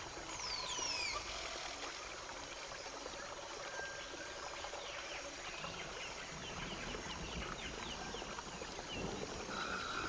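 Jungle soundscape: a steady wash of running water under bird calls, with two descending whistles about half a second in and a run of short chirps in the middle.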